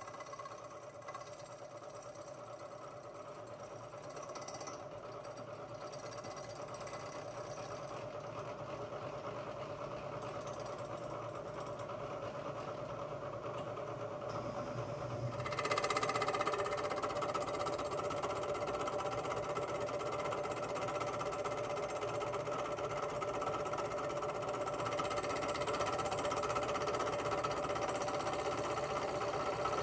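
Milling machine taking a light carbide cut with a Criterion adjustable fly cutter across the top of a hardened cast-iron exhaust manifold: a steady rhythmic chatter over the spindle's hum, growing louder and stepping up about halfway through.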